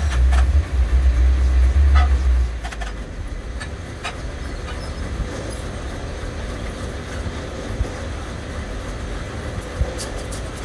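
Steady low workshop rumble, heaviest in the first couple of seconds, with a few sharp metallic knocks and clinks as a heavy steel shaft hung on a chain hoist is shifted at the lathe.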